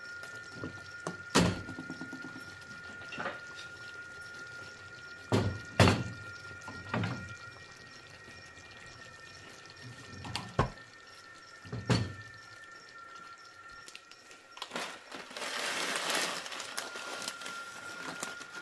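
Wooden boards and a ceramic bowl set down on the steel grates of a gas stove: a string of sharp knocks over the first twelve seconds. Then dry potato sticks poured from a bag into the bowl, a rustling hiss lasting about two seconds near the end, over a steady high tone.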